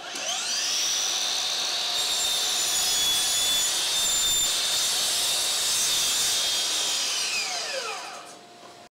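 DeWalt DCS781 60V cordless 12-inch miter saw spinning up with a rising whine and running steadily while cutting through wood. Near the end it winds down in a falling whine over about a second as the electric brake stops the blade.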